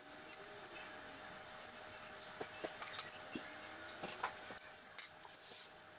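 Light clicks and taps of the compressor's sheet-metal screen protector plate being set in place and handled against its housing, several in quick succession midway through, over a faint steady hum.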